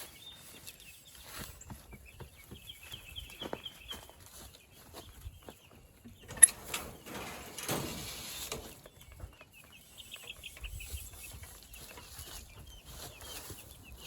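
Meat chickens peeping and clucking in quick high trills, with a single sharp knock about six seconds in and a stretch of rustling right after it.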